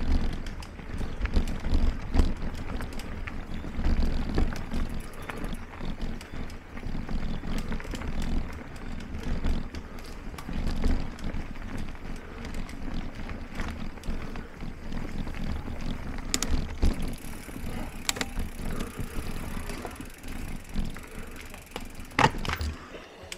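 Mountain bike rolling along a dirt forest singletrack: a continuous tyre rumble with the bike knocking and rattling over roots and rocks, and a few sharp clacks in the last several seconds.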